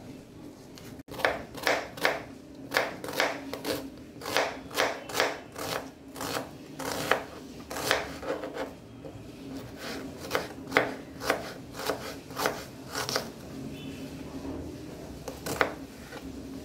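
Kitchen knife slicing a red onion on a plastic cutting board: a steady run of crisp cuts, about three a second, each knocking on the board. The cutting stops a little after two-thirds of the way through, with one last cut near the end.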